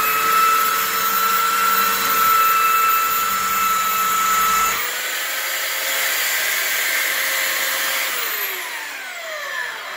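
Skil handheld belt sander running on a wooden bar-stool seat: a steady motor whine over the rasp of the belt on the wood. About five seconds in the whine steps slightly higher and the rasp drops away as the sander is lifted off the wood. Near the end it is switched off and winds down with a falling whine.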